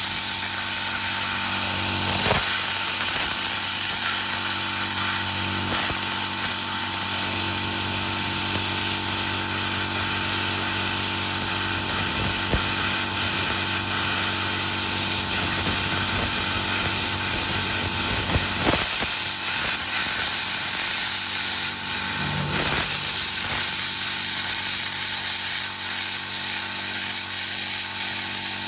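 Plasma cutter with a built-in air compressor running steadily: a loud hiss over a steady motor hum, cutting steel plate. There are a couple of brief knocks, one about two seconds in and another past the middle.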